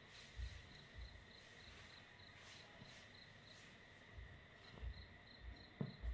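Faint insect chirping, about three even chirps a second over a thin steady high tone, breaking off for about a second midway, with a few soft low thumps.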